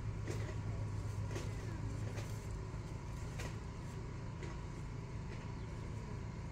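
Steady low mechanical hum with a thin steady tone above it, like a running engine or machine, and about six light clicks spread through.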